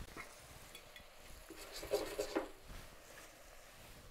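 Short bout of clattering and scraping from cauliflower florets being moved about in a stainless steel saucepan, about two seconds in, with a small click at the start.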